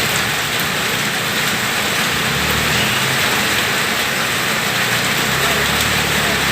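Steady hiss of heavy rain and wind, with a vehicle engine's low hum coming up about two seconds in and fading near the end.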